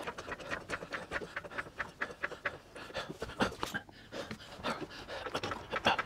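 Hydraulic trolley jack being pumped by its long handle to raise a car: a quick, uneven run of short clicks and creaks from the pump strokes.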